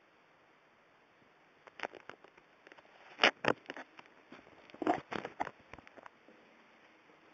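Handling noise from a phone being moved in the hand: irregular clusters of sharp clicks and rustles, two louder bursts in the middle, against a near-silent room tone.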